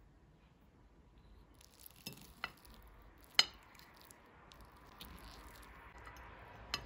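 Metal fork cutting through an omelette, its tines knocking and scraping on the plate: four sharp clinks, the loudest about halfway through, with soft scraping between them.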